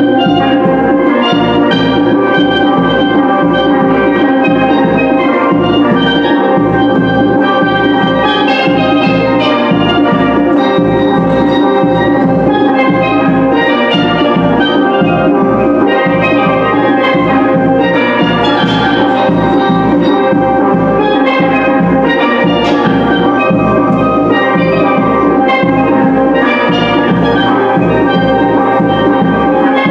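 Five-player steel pan band playing live: rapid ringing pitched notes from several steel pans over a steady drum beat, without a break.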